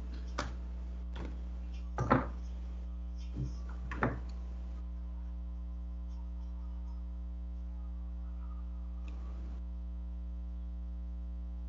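Steady electrical mains hum, a low drone with a stack of fainter steady tones above it, picked up in an online call's audio. A few brief clicks or knocks come in the first few seconds.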